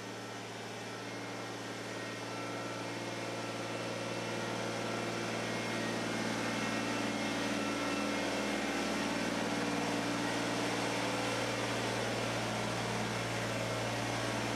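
Compact tractor engine running steadily, growing louder as the tractor backs into the garage with the rear blade raised on its 3-point hitch.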